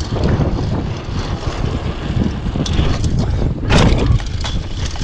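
Wind buffeting the microphone of a chest-mounted camera on a moving bicycle, over a steady low rumble with scattered rattles and clicks. A louder burst of noise comes about four seconds in.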